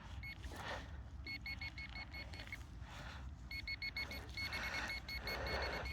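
Metal detector beeping in rapid short pulses, about five a second, in two runs, as it sounds over a target in a dug plug of soil, with scratchy rustling of soil being handled between and under the beeps.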